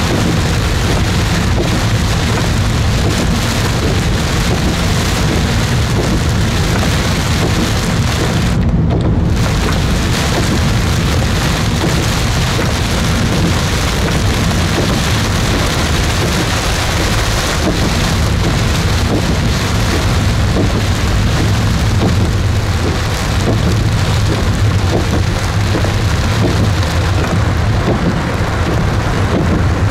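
Heavy rain pouring steadily, a dense hiss with a strong low rumble underneath.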